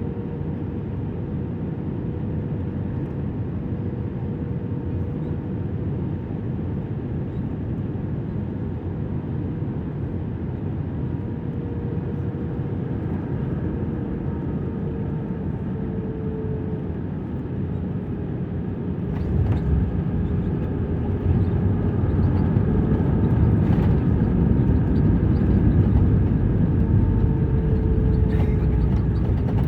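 Steady low engine rumble with a constant hum, growing louder about two-thirds of the way through, with a few faint clicks.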